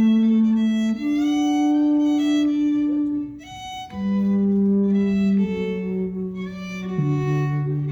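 Solo bowed string instrument playing slow, long-held notes, stepping from one pitch to the next. It pauses briefly in the middle, and two notes sound together near the end.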